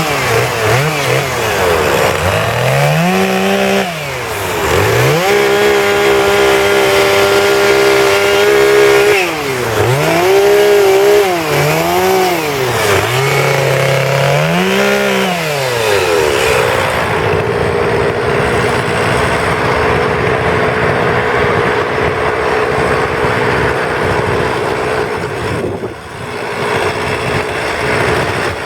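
Petrol chainsaw carving a wooden sculpture, its engine revved up and down over and over as the chain cuts, with one longer spell held at high revs. For roughly the last ten seconds it runs at a steady pitch.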